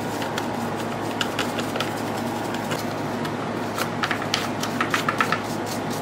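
Small brush scrubbing and scraping debris out of the plastic case of a vintage JR radio control transmitter: a run of short scratchy clicks, thickest about four to five seconds in, over a steady background hum.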